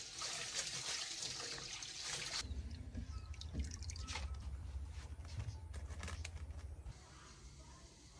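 Water splashing as hands swish raw sticky rice around a steel bowl of water, washing it. About two and a half seconds in it turns quieter, with a low rumble and scattered small splashes and knocks as the rice is rinsed in a woven bamboo basket over a steel sink.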